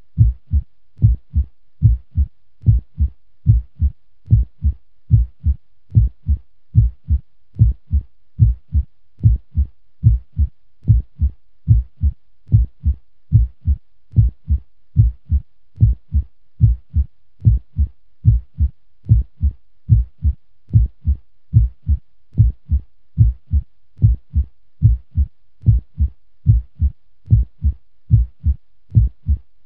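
Heartbeat sound effect at a normal resting rate: a steady, even lub-dub double thump, about one beat a second.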